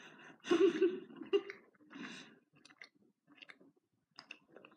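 A person breathing and chewing a jelly bean, with one louder breathy sound about half a second in, then faint mouth clicks.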